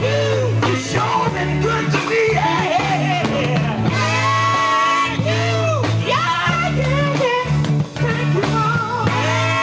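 Male gospel group singing a song with long held notes, backed by a band with guitar and bass.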